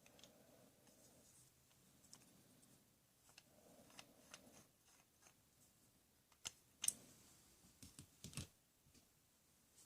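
Near silence broken by a few light clicks and knocks, the loudest about seven seconds in and a short cluster soon after.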